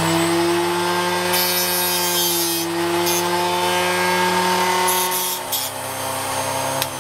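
Ferrex mini bench grinder's 120-watt motor running steadily while a bradawl tip is pressed to the spinning grinding wheel, giving gritty grinding in several bursts as the edge is put on.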